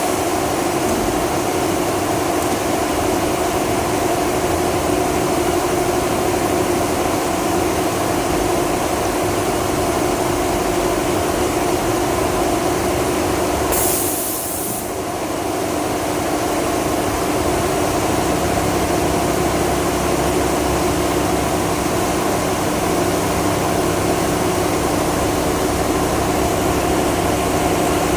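Automatic duvet sewing machine running steadily with a constant mechanical hum, and a short hiss about halfway through.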